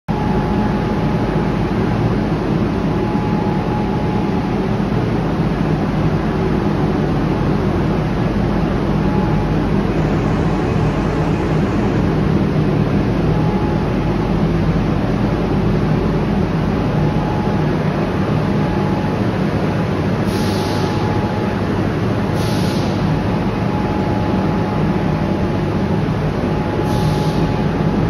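Aluminum scrap melting furnace firing: a loud, steady rushing noise with a faint thin steady tone, broken by three short hisses in the last third.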